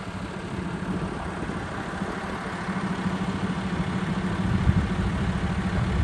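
Vehicle engine running with a steady low hum that grows gradually louder.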